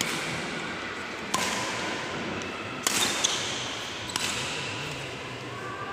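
Badminton rally: a racquet striking the shuttlecock again and again, sharp hits about one every second and a half, each ringing on in the reverberant sports hall.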